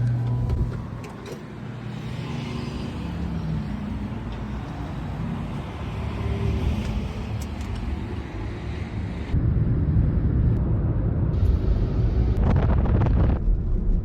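A car driving along a road: a steady low engine hum under road and tyre noise. About two-thirds of the way through, the sound jumps abruptly louder and heavier in the low end.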